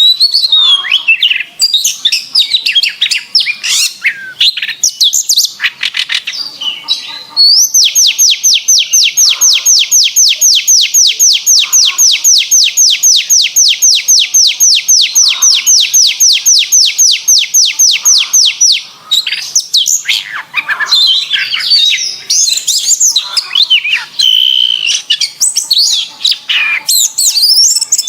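Domestic canary singing: quick varied chirps and warbles, then a long trill of identical sweeping notes repeated about five times a second for some eleven seconds, then varied warbling again.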